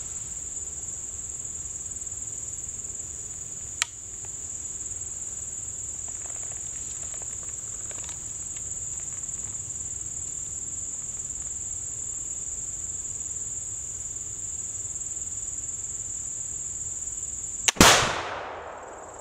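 A flintlock muzzleloader fires near the end, one sharp report that dies away over about a second. Before it there is a steady high-pitched chorus of insects, with a single small click about four seconds in.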